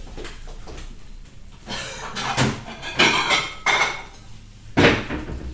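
A spatula scraping and knocking in a wok as stir-fried rice-vermicelli noodles are dished up. It comes as a few separate scrapes and clatters, the loudest near the end.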